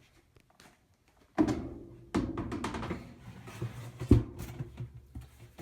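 Near silence, then from about a second and a half in, handling noise with a run of clunks and knocks as a Maytag washer's spin tub is lowered back into the machine, with a sharp knock about four seconds in.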